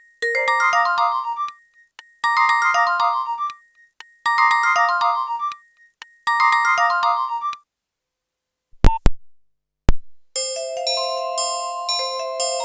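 Nokia 1112 built-in ringtones, taken straight from the phone's earphone port. A short tune of electronic tones plays four times, about two seconds apart. After a pause broken by a few loud clicks, the next ringtone starts about ten seconds in: a busier, chiming melody.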